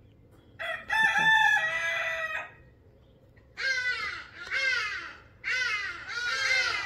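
A rooster crows once, a long call that holds its pitch and drops away at the end. About a second later a run of short, falling calls starts, coming in pairs and repeating.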